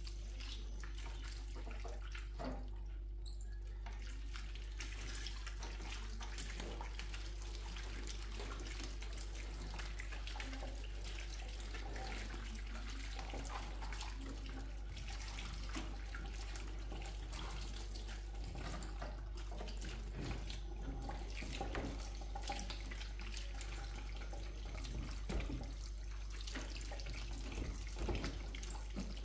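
Kitchen tap running steadily into a stainless-steel sink as tomatoes and an onion are rinsed by hand in a plastic basket, with small splashes and knocks throughout and a few louder ones near the end.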